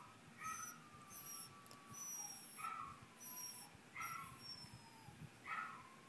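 Pet dog howling quietly in a run of whining calls, each sliding down in pitch, about five in all, a second and a half or so apart. The howling is set off by another dog howling at sirens.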